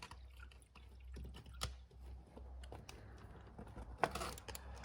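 Scattered light clicks and taps of a plastic fuel filter and fuel container being handled while the new filter is filled with fuel. A couple of sharper clicks come near the end.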